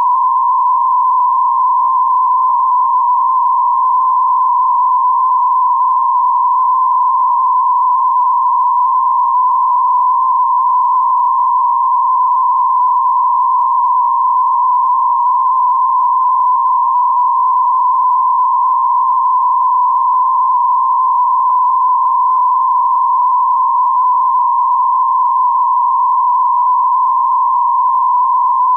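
8PSK125 digital data signal: a steady, rough-edged tone band centred around 1000 Hz that runs on without a break.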